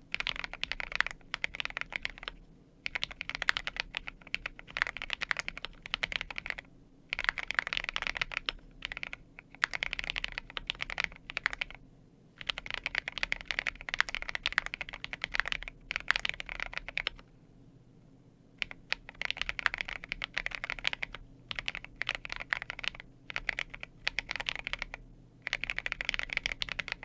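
Keychron Q8 Pro mechanical keyboard with fully lubricated Akko CS Piano switches being typed on: runs of quick keystrokes broken by short pauses, with a longer pause a little past the middle.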